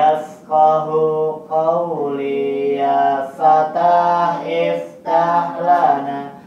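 A man chanting Qur'an recitation solo and unaccompanied: long held, ornamented notes in short phrases, with brief breaths between them.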